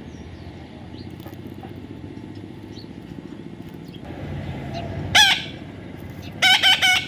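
Parrot calling: one loud, harsh squawk about five seconds in, then a quick run of three or four squawks near the end, over a steady low background hum.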